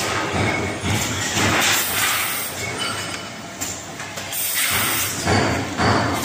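Pouch packing machine running, with a rush of hissing noise that swells and fades roughly every second or two as its pneumatic parts cycle.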